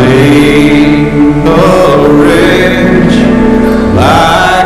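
Music with a sung voice holding long, wavering notes.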